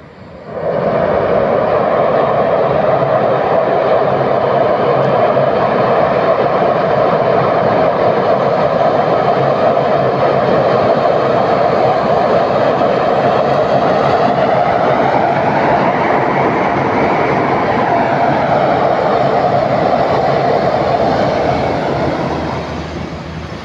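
Diesel locomotive hauling a container freight train, its engine running loud and steady under power, with a faint whine that rises and falls around the middle; the sound drops near the end.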